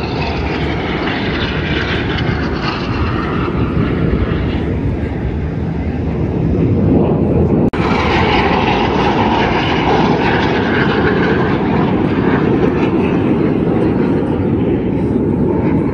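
Jet engines of aerobatic display aircraft, a steady loud rushing noise, with a brief dropout about eight seconds in.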